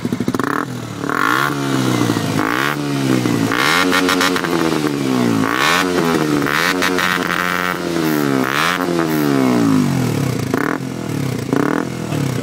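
KTM 125 Duke's single-cylinder four-stroke engine revved repeatedly through a Scorpion carbon aftermarket exhaust, the pitch rising and falling with each rev, with two shorter blips near the end.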